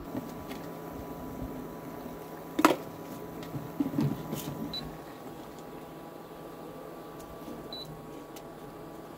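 A sharp click, then a few light knocks and clinks as a stainless steel Turkish double teapot and a tea canister are handled, over a steady quiet background.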